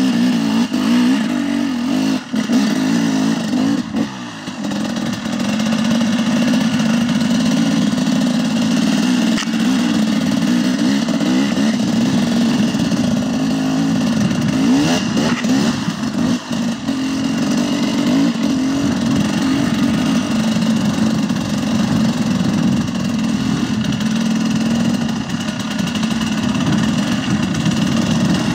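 KTM 300 XC-W two-stroke single-cylinder dirt bike engine running under load, its pitch rising and falling as the throttle is worked, with brief throttle-offs about two and four seconds in.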